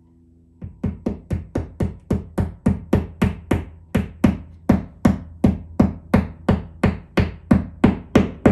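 Claw hammer tapping in a steady run, about three blows a second, driving a wall anchor into the wall through the lower hole of a metal shelf bracket.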